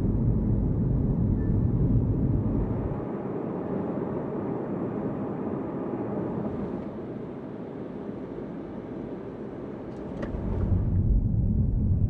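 Road and engine noise inside a moving car: a steady low rumble that thins out about three seconds in and swells back near the end, with a short click about ten seconds in.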